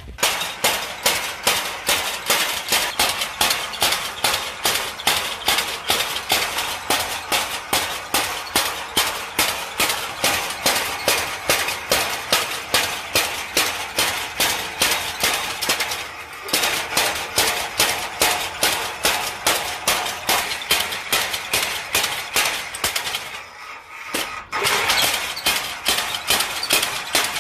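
Belt-driven mechanical power hammer pounding an axe head on its anvil in fast, even metal-on-metal blows, about three a second. The blows stop briefly twice, once past the middle and again a few seconds before the end.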